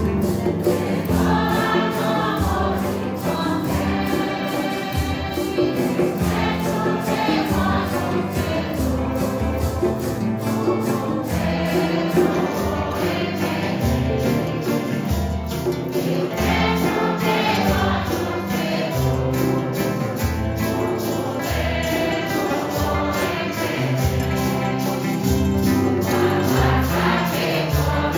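A mixed congregation singing a Santo Daime hymn together, accompanied by strummed acoustic guitars and a steady shaken percussion beat from maracas.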